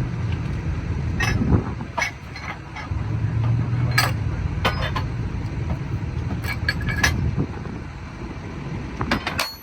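An engine running steadily, with sharp metallic clinks of tools striking track hardware at irregular intervals during track work on a railroad diamond crossing.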